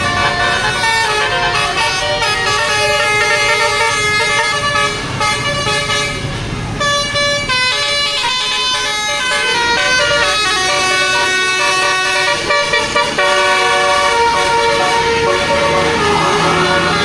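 Tour bus's basuri telolet air horn playing a tune of stepped, multi-tone horn notes, with a short lull about six seconds in. The bus engine hums underneath.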